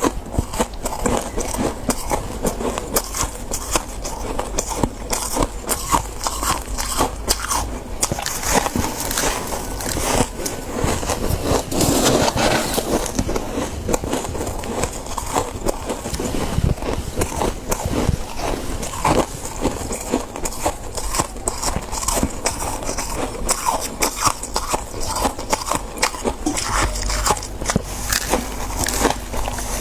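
Close-miked chewing of soft freezer frost: a dense, continuous run of small crisp crunches and crackles.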